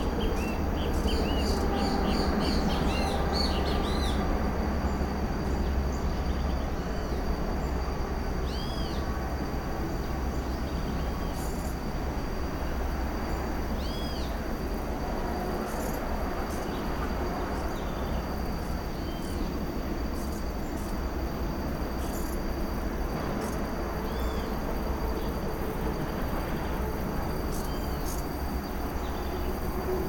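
Forest birds calling: a quick run of short arched whistled notes in the first few seconds, then single arched notes repeated about every five seconds. Under them runs a steady high insect tone and a low rumble.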